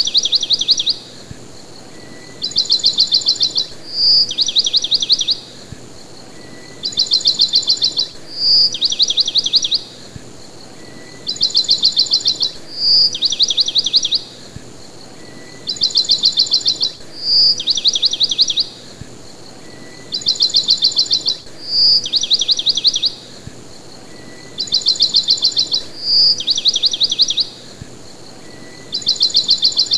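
Songbird chirping in a repeating loop: a short high whistled note followed by two fast chirping trills, the same phrase recurring about every four and a half seconds, about seven times.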